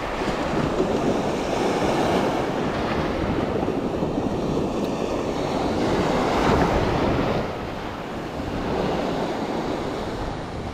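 Surf washing up on a sandy beach, with wind buffeting the microphone in a steady rushing noise that eases a little after about seven seconds.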